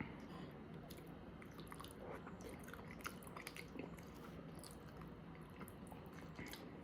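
A person chewing a mouthful of food close to the microphone: faint, irregular wet clicks and smacks of eating.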